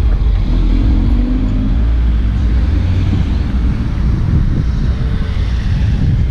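Cars driving past close by, their engines and tyres on the road, over a steady low rumble. A brief engine hum stands out about a second in.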